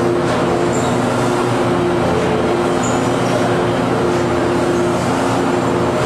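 Corrugated cardboard production line running: a steady machine drone with a constant low hum of several held tones, unchanging throughout.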